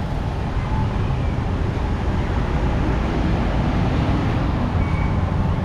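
Street traffic: a steady rumble of passing vehicles.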